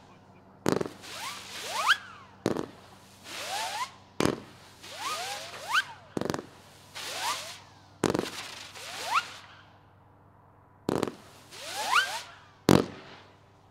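Zippee Ki-Yay 200-gram firework cake firing seven shots, one every second or two with a pause near the middle. Each is a sharp launch thump followed by a hiss and several rising whistles: the cake's zipping effect.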